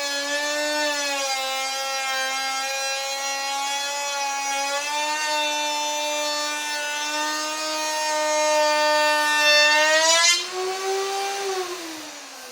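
An electric woodworking power tool runs with a steady whine while cutting wood. About ten seconds in the cut ends: the motor briefly speeds up, then winds down with a falling whine near the end.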